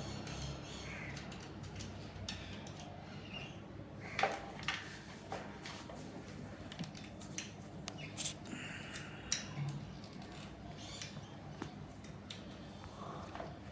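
Faint scattered clicks and light taps with a few small squeaks, about a dozen over the span; no tool is running.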